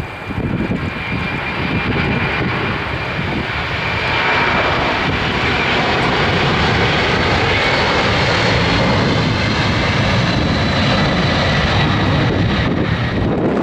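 Boeing 767-300's twin turbofan engines at takeoff thrust during the takeoff roll: a steady jet roar with a high fan whine over it, building over the first few seconds and then holding loud as the plane passes.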